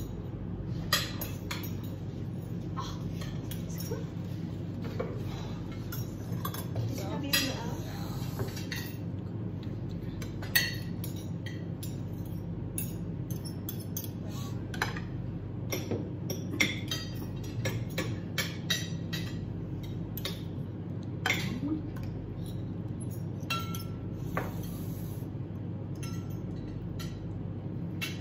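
Metal fork and spoon clinking and scraping against ceramic plates and a bowl while rice noodles are served, in many light, irregular clicks and knocks. A steady low hum runs underneath.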